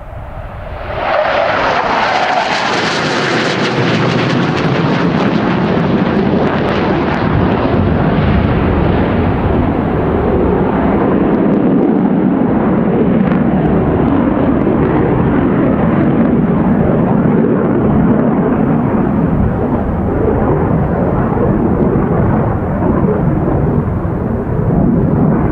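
Fighter jet flying by. About a second in, a loud rush with a high hiss comes on suddenly. The hiss thins out over the next several seconds, and a steady deep jet roar carries on.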